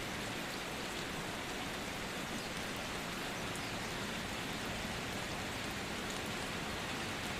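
Steady sizzling of food frying in hot oil in a cooking pot, with faint crackles.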